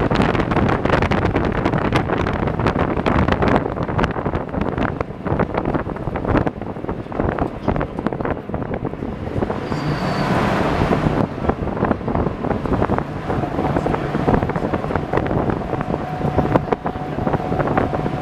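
WWII DUKW amphibious truck driving along a road on its original gasoline engine, with steady engine and road noise, frequent rattles and knocks from the vehicle, and wind buffeting the microphone.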